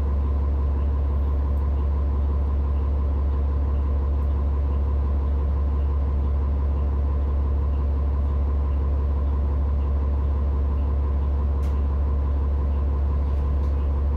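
Vehicle engine idling: a steady low hum that holds unchanged in pitch and level.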